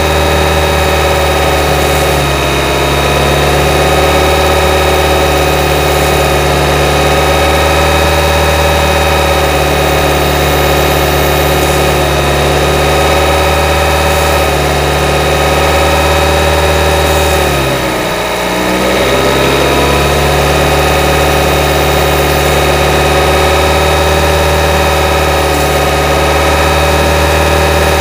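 Direct-injection (GDI) car engine running steadily above idle while intake cleaner is sprayed into the intake ahead of the throttle plate. Its note sags in pitch for about a second roughly two-thirds of the way in, then comes back up to speed.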